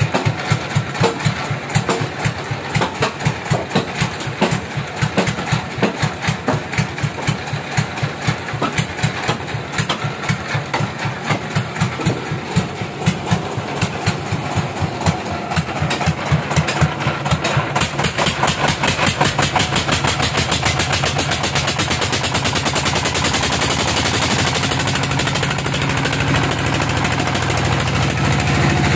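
Log band sawmill running on a teak log. It starts as a regular chugging of about five beats a second, which quickens and smooths into a steady drone in the second half, with more hiss near the end.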